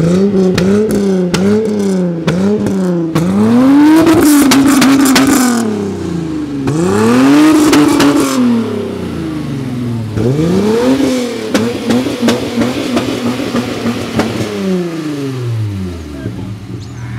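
Volkswagen Jetta's VR6 engine free-revving through a twin-tip exhaust while the car stands still: a run of about five quick throttle blips, then longer revs held for a second or two, with the engine dropping back toward idle between them.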